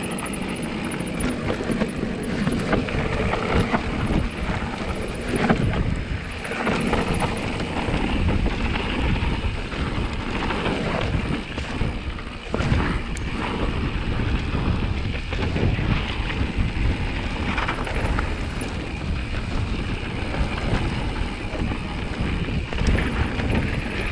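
Mountain-bike descent on a gravel trail heard from a helmet camera: wind buffeting the microphone, tyres crunching over the loose surface, and the bike rattling and knocking over bumps.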